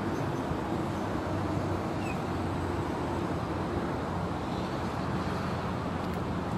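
Steady low engine hum over constant outdoor background noise, with no distinct events.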